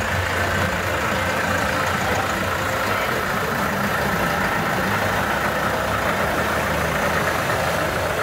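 Steyr 4075 Kompakt tractor's diesel engine idling steadily.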